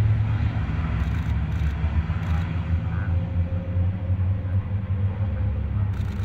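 Diesel engines of racing trucks running, a steady low rumble without clear revving.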